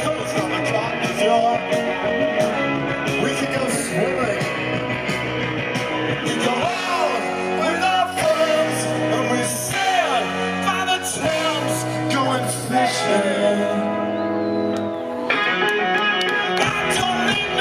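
Live rock band playing: a male singer over electric guitar, bass and drums, the sound growing fuller again near the end.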